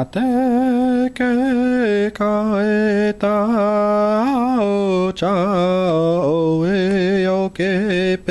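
Music: a single voice chanting long, held notes with vibrato, each note lasting about a second or more, with short breaks between them.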